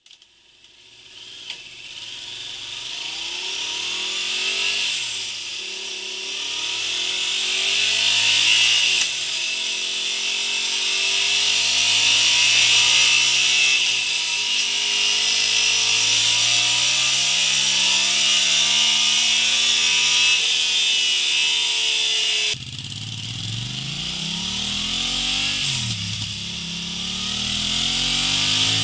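Yamaha Tracer 700's parallel-twin engine revved over and over on a dynamometer, its pitch climbing and dropping, over a steady high hiss. Through the stock exhaust at first, then after a cut about three-quarters of the way through, through a Mivv Suono aftermarket silencer, which gives a fuller low note.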